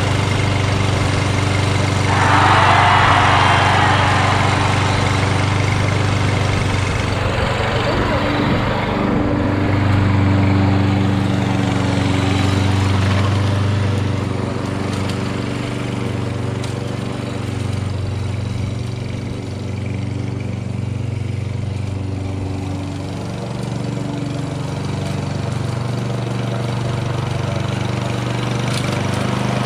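Kohler XT7 single-cylinder engine of a Lawn-Boy Insight self-propelled mower running steadily, with the rear-wheel drive engaged and pulling the mower. It gets fainter partway through as the mower moves away. A brief rushing noise comes about two seconds in.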